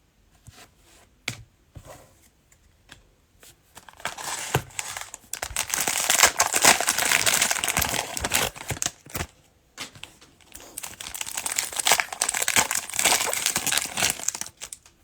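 Plastic wrapper of a trading-card cello pack being torn open and crinkled, in two long stretches with a short break between. A few light clicks and taps come before it.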